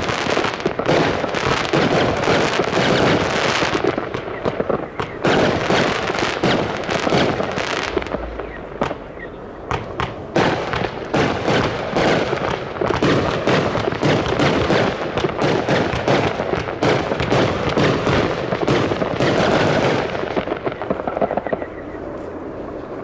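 Lesli Powerhouse, a 100-shot 25 mm compound firework cake, firing in rapid succession: a dense stream of launch thumps and shell-burst bangs. The firing dies away near the end.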